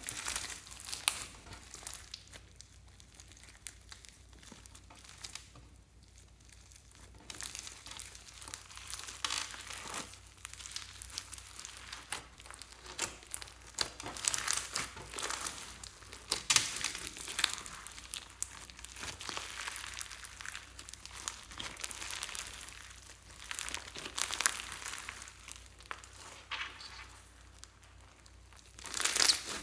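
Hands squishing and stretching slime, giving irregular sticky clicks and pops, quieter for the first few seconds and then busier.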